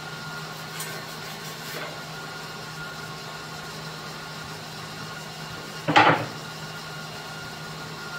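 A steady low hum, with a couple of faint knocks in the first two seconds and a single loud knock about six seconds in.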